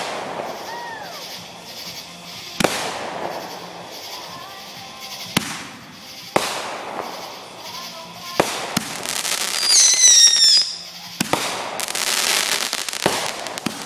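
Consumer aerial fireworks going off: about eight sharp bangs of bursting shells, a few seconds apart. A little past two-thirds of the way in comes a falling whistle, and near the end a longer crackling hiss.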